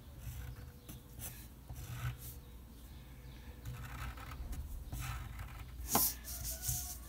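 Pencil lead scratching on paper in short strokes as lines are drawn, with one sharp click about six seconds in.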